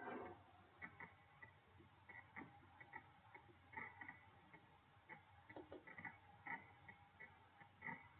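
Faint, irregular clicking of a computer mouse and its scroll wheel over near-silent room tone.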